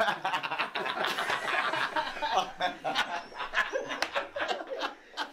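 Several men laughing and chuckling together, with sharp knocks scattered through the laughter.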